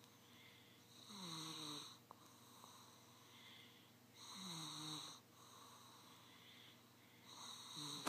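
Light snoring from a sleeper: three snores about three seconds apart, each under a second long with a slightly falling pitch. A sharp click right at the end.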